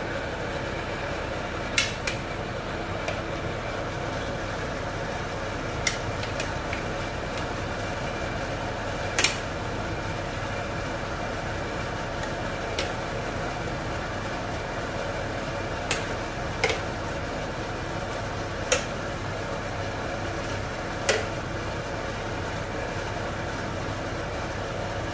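A ladle knocking against a metal cooking pot: about nine short sharp clicks at uneven intervals, over a steady even hiss.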